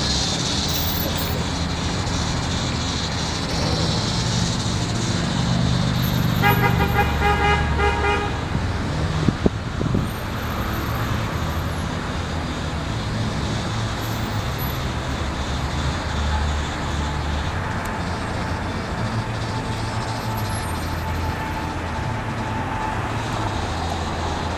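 Steady road traffic and engine noise. About six seconds in, a vehicle horn sounds one steady note for about two seconds, followed shortly by two sharp clicks.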